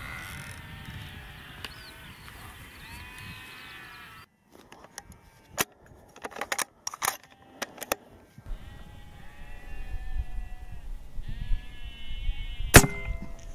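Sheep bleating repeatedly in the surrounding field. The calls break off for a few seconds of near silence with scattered clicks, then resume over a low rumble. A single sharp crack sounds near the end.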